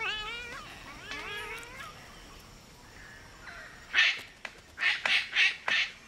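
Palm cockatoo calls: wavering, whistled, rising-and-falling calls in the first two seconds, then from about four seconds in a run of five or so short harsh screeches.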